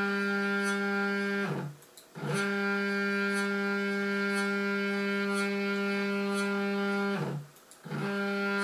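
Stepper motors of a homemade CNC router whining at a steady pitch as an axis traverses. About two seconds in and again near the end, the pitch glides down as the axis decelerates to a stop, goes quiet for a moment, then glides back up as it accelerates away again.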